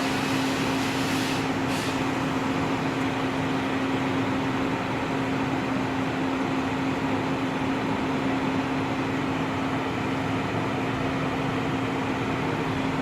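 Steady mechanical hum: one constant low tone over an even rushing noise, from a running engine or machine.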